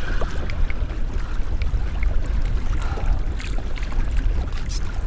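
Wind buffeting the microphone as a steady low rumble, over water lapping and splashing against a kayak hull on choppy open water, with a few faint scattered ticks.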